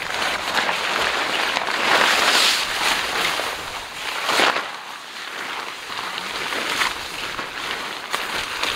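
Nylon tent rainfly rustling and flapping as it is shaken out and thrown over the inner tent. The loudest rustles come about two seconds in and again at about four and a half seconds.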